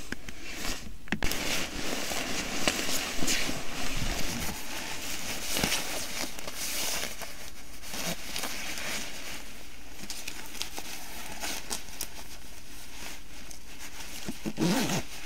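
Rustling and crinkling of clothing being handled, with scattered short scrapes.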